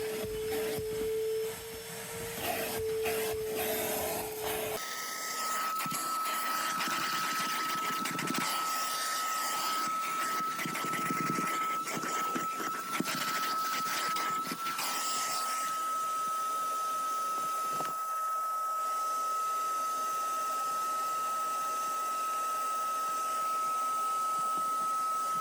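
Vacuum motor running with a steady whine over rushing air. About five seconds in it changes abruptly to a higher, thinner whine.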